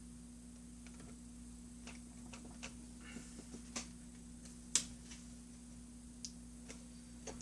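Scattered light clicks and taps from small laptop parts and tools being handled, the sharpest about five seconds in, over a faint steady hum.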